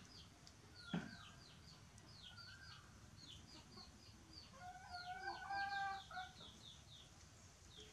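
Small birds chirping in short, high, falling chirps, about three a second, with a louder drawn-out animal call lasting over a second around the middle. One sharp knock comes about a second in.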